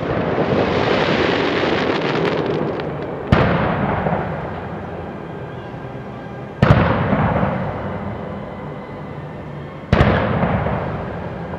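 Fireworks: a dense crackle fading away over the first few seconds, then three sharp bangs about three seconds apart, each trailing off in a fading rush.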